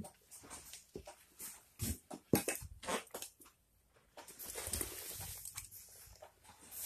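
Footsteps of boots on gritty concrete steps: irregular scuffs, crunches and knocks, with a brief quiet spell just before halfway and then steadier rustling of the handheld phone.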